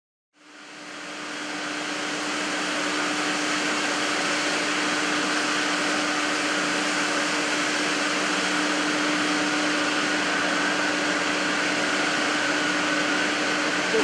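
Steady machinery noise of a cable sheathing production line running: an even hiss with a steady low hum and a fainter higher whine. It fades in over the first couple of seconds.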